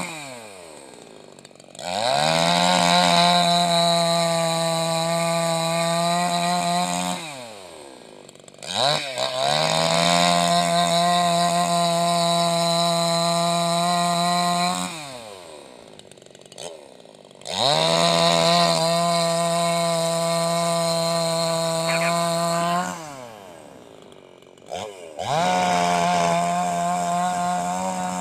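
Petrol two-stroke chainsaw revved up four times, each time held steady at high speed for about five seconds, then dropping back to idle.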